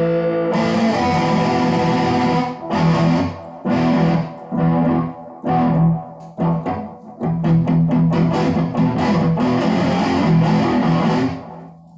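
Guitar playing: a held, ringing chord, then a series of short strummed chords with brief breaks between them. It dies away near the end, leaving a faint low hum.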